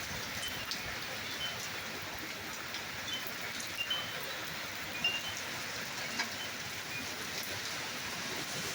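Steady rain falling, with scattered sharp drip ticks and short high notes now and then.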